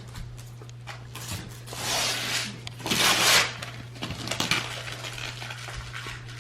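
Christmas wrapping paper being torn and crumpled off a gift, two louder crackling rips about two and three seconds in among smaller rustles and clicks, over a steady low hum.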